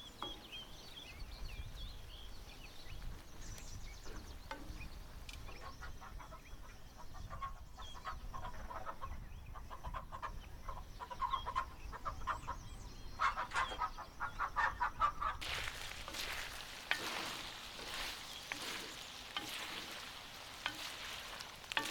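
Domestic chickens clucking in short repeated calls, thickest in the middle of the stretch. After an abrupt change about two-thirds of the way through, a steady noisy hiss with scattered clicks takes over.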